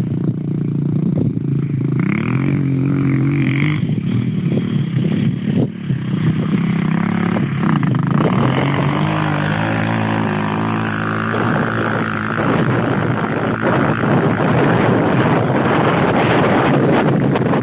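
Dirt bike engine revving, then accelerating hard, its pitch climbing in steps through the gears as the bike pulls away.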